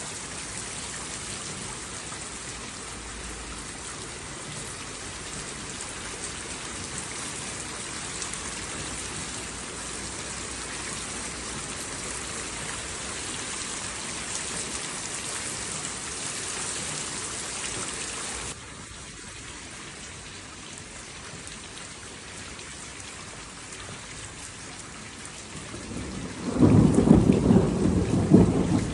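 Heavy, steady rain hissing. About two-thirds of the way through it drops suddenly to a quieter, softer rain. Near the end a loud rumble of thunder rolls in under the rain.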